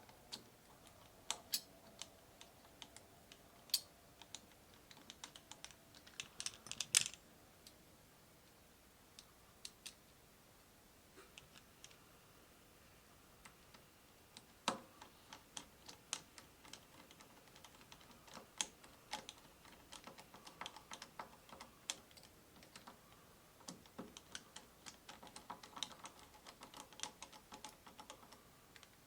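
Small screws being started and driven into a steering-wheel horn contact plate with a screwdriver: irregular light metal clicks and ticks, sometimes in quick runs, with a few sharper knocks.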